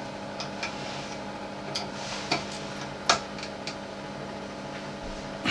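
Bathroom extractor fan running with a steady hum, with a few light, sharp clicks scattered through it.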